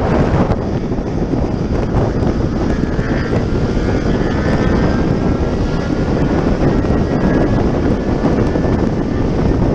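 Wind rushing and buffeting over a helmet-mounted camera at highway speed, with the motorcycle's engine running steadily underneath.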